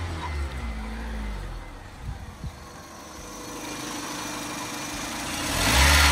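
First-generation Honda CR-V's 2.0-litre four-cylinder engine idling just after starting on a newly fitted starter. There are a couple of short knocks about two seconds in and a louder swell of noise near the end.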